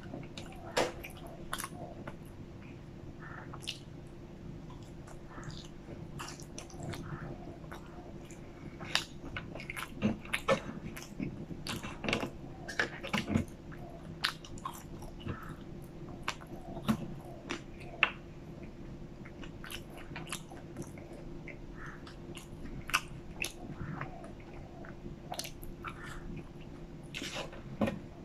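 Close-miked chewing of McDonald's french fries dipped in sauce: irregular wet mouth clicks and smacks throughout, over a faint steady hum.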